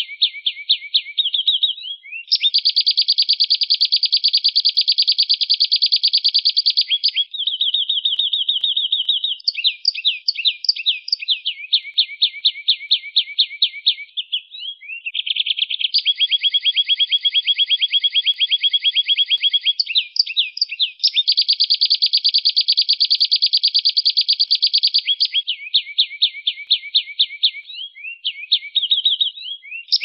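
Domestic canary singing a long, continuous song of rapid rolling trills, one tour running straight into the next with hardly a pause, some held for about four or five seconds.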